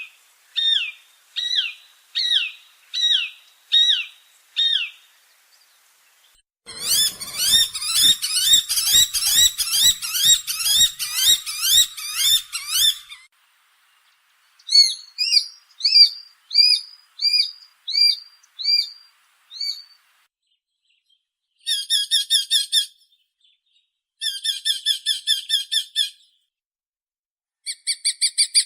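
Small Accipiter hawks (sparrowhawk and shikra type) calling: repeated sharp, high, down-slurred call notes in several separate series. The first and third series are spaced calls at a little over one a second, the second is a dense rapid chatter lasting about six seconds, and short fast bursts of calls come near the end.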